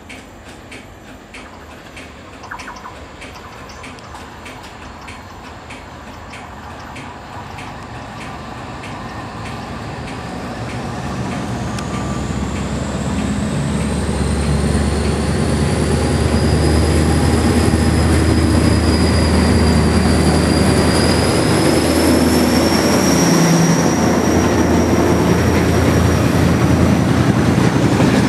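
KTMB Class 24 diesel locomotive hauling empty flatbed freight wagons, approaching and passing, its engine rumble growing steadily louder. High wheel squeal glides up and down in pitch through the middle. Near the end the empty wagons rattle loudly past over the rail joints.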